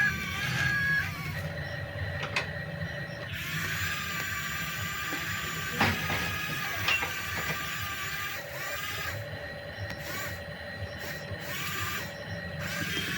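Small geared electric motors of a remote-control toy excavator whirring, starting and stopping in stretches as the arm and bucket are worked.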